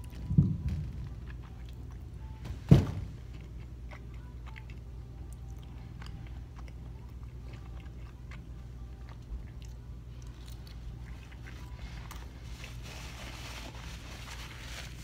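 A person biting into and chewing a soft breakfast burrito with closed mouth, with faint mouth clicks, over a steady low hum. A dull thump comes just after the start and a sharp knock a little under three seconds in, the loudest sound.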